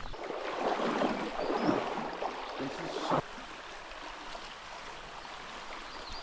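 Running water of a small mountain stream, a louder, splashier rush for about the first three seconds that drops suddenly to a steadier, quieter flow.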